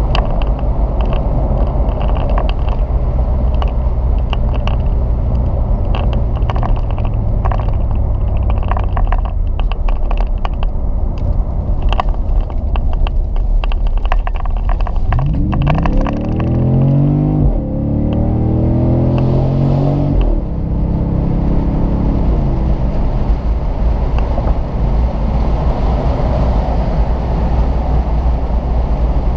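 2010 Jeep Grand Cherokee SRT8's 6.1-litre HEMI V8 through a Borla S-Type cat-back exhaust, cruising with a steady low drone and some light clicks. About halfway through it accelerates hard: the pitch rises, drops at a gear shift, rises again, then settles back to a cruising drone.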